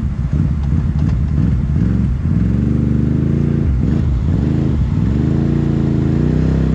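Off-road vehicle engine revving up and down several times, its pitch climbing, dipping and climbing again, as the machine works to get a stuck vehicle moving on a muddy trail.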